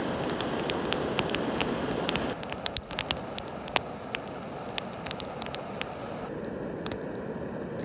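Wood campfire crackling, with sharp irregular pops over a steady hiss. About two and a half seconds in the hiss drops, while scattered pops carry on.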